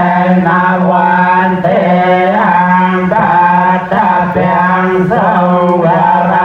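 Buddhist chanting: a voice chanting in a melodic line that rises and falls every half second or so over a steady, unbroken low drone.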